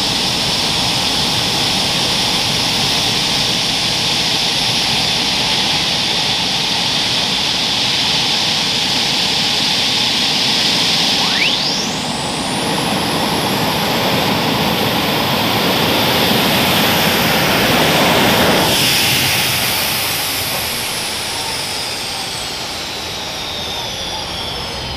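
Alcohol-burning super modified pulling tractor engine running with a loud turbocharger whine. About halfway through, the turbo whistle sweeps sharply up in pitch as the turbos spool. Near the end it slides slowly back down as they spool down.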